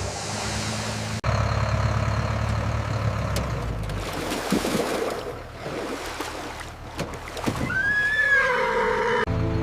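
A boat's motor running, then a horse whinnying once near the end: a single call that rises and then falls in pitch.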